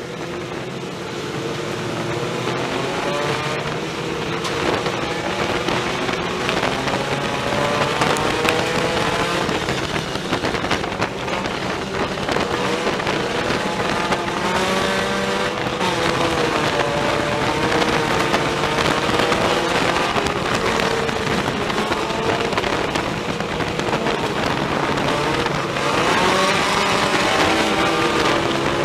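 Ford Focus sport compact race car's four-cylinder engine heard from inside the cockpit, its pitch rising and falling over and over as the throttle is opened and lifted around the oval. The engine builds in loudness over the first few seconds.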